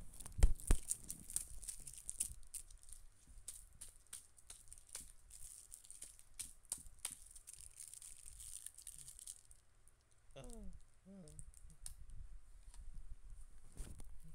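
Irregular rustling, crinkling and sharp clicks of something being handled or torn, with a short warbling call about ten seconds in.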